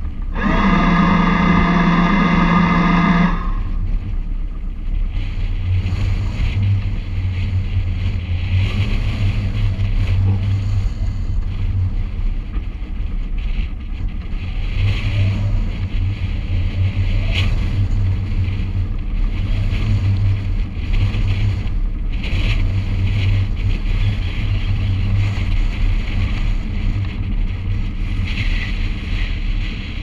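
Lewmar electric bow thruster whining loudly for about three seconds as it pushes the bow round. After it comes a steady low rumble, with gusts of strong wind buffeting the microphone.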